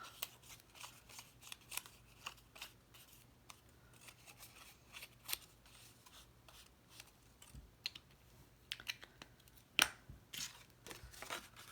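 Paper and craft tools being handled on a table: faint scattered scratches, rustles and light taps, with one sharper tap about ten seconds in.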